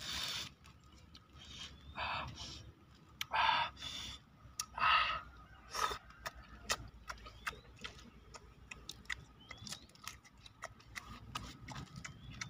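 A person eating raw shrimp: a handful of short crunchy bursts in the first six seconds, then a run of small wet clicks of chewing.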